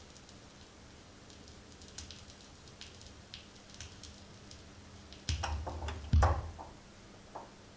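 Blaupunkt P-150 automatic direct-drive turntable: light scattered ticks from the stylus riding the record's run-out groove. About five seconds in, the automatic end-of-record mechanism engages with a short mechanical clatter and a louder clunk as it lifts the tonearm to send it back to its rest.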